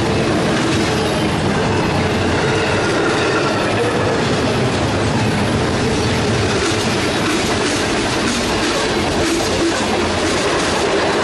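Freight train rolling past close by, steel wheels on rail making a steady, loud rumble as double-stack container well cars and then refrigerated boxcars go by. The wheels click over rail joints, more distinctly in the second half.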